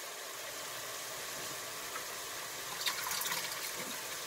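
Hot homemade chicken stock being poured into a measuring pitcher, a steady splashing fill with a brief louder patch about three seconds in.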